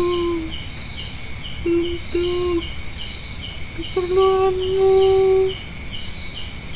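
Night-time chorus of crickets chirping steadily, pulsing about three times a second. Over it, a person's voice makes three long held tones, the longest about a second and a half near the end.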